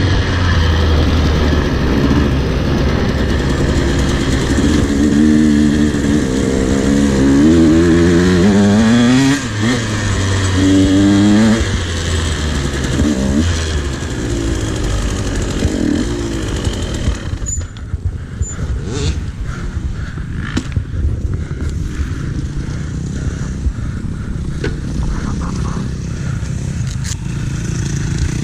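Motocross dirt bike engine revving hard, its pitch climbing and dropping again and again as it works through the gears. About two-thirds of the way in the engine note falls away, leaving a quieter rough running sound with scattered rattling and clicking.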